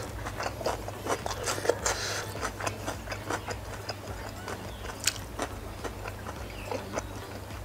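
Close-up chewing of spicy instant noodles, with wet mouth smacks, mixed with wooden chopsticks clicking and scraping through the noodles on a wooden tray. Many short irregular clicks are heard, the sharpest about five seconds in.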